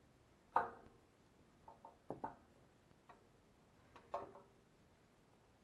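A handful of light metallic knocks, each with a short ring, from a steel panel radiator being shifted and seated onto its wall brackets.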